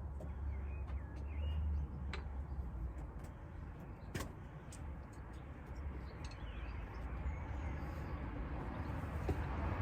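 Outdoor background with a steady low rumble, a few sharp clicks (the loudest about four seconds in), and faint bird chirps.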